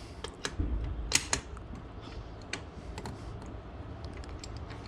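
Socket wrench clicking and metal tools clinking in a spark plug well while a spark plug is worked loose: scattered small sharp clicks, with one louder click about a second in.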